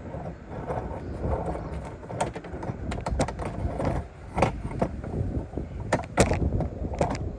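Irregular clicks and knocks of tools and parts being handled during engine work, over a low rumble.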